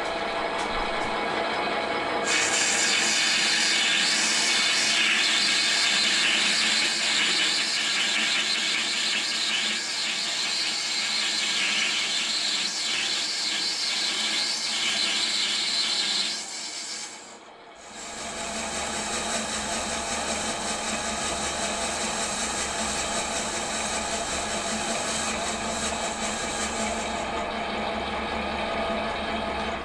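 Metal lathe running while a cutting tool turns down the outside of a cast iron cylinder blank: a steady hissing cut over the machine's whine, coming in about two seconds in. After a brief break about 17 seconds in, the lathe runs on with a deeper hum underneath.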